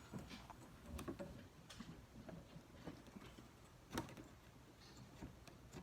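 Faint, scattered clicks and taps of small metal parts being handled as a copper water line is fitted into a compression fitting, with one sharper click about four seconds in.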